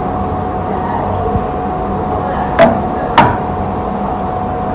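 Two sharp knocks about half a second apart, over a steady hum.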